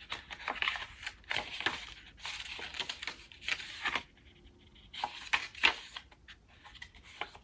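Paper rustling and swishing as the pages of a small passport-style photo booklet are turned by hand, in irregular strokes with a short lull partway through.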